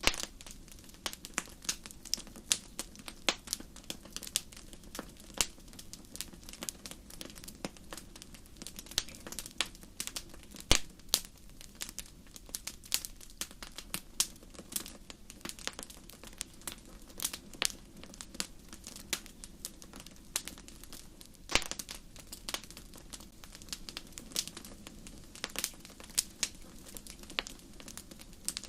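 Campfire crackling: burning wood gives irregular sharp pops and snaps over a low, steady rush, with two louder snaps, one about eleven seconds in and another a little past twenty seconds.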